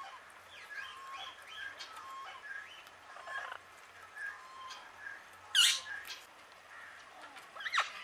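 Parrots calling: a steady run of short chirps and squeaks, then two loud, harsh screeches, one about five and a half seconds in and one near the end.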